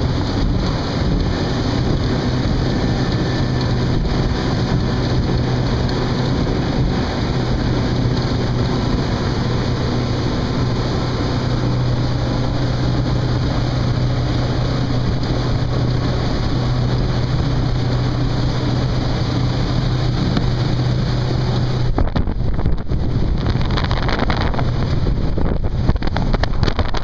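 Honda 130 HP four-stroke outboard running steadily under way, a constant hum heard from inside the boat's cabin over hull and water noise. About 22 seconds in the hum drops back and gusty wind noise on the microphone takes over.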